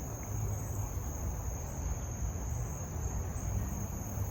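Steady, unbroken high-pitched chorus of insects such as crickets, over a constant low rumble.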